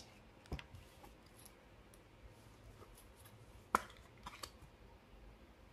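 Trading cards handled by hand: a few light clicks and rustles, the sharpest a little under four seconds in.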